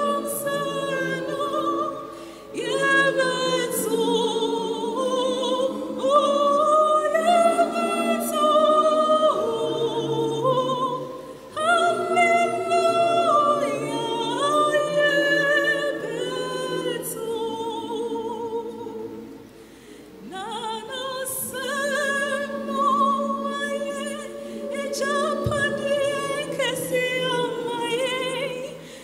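A female soloist singing a sacred choral piece into a microphone, backed by a choir. The singing falls in long phrases with short breaths between them, about three times.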